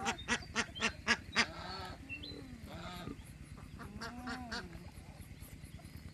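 Geese honking: a quick run of about six honks in the first second and a half, then more scattered calls about three and four seconds in, over a steady low hum.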